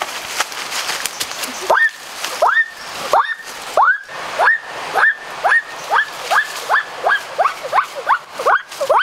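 A bird giving a long series of short rising whistled notes. They start about two seconds in, slowly at first, and quicken to about three a second.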